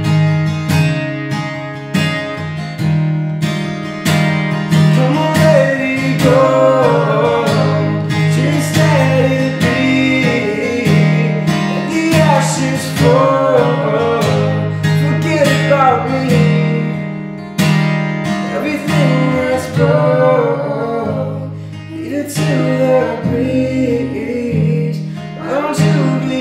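Steel-string acoustic guitar strummed steadily, with a singing voice joining about six seconds in and carrying on over the chords, with short breaks.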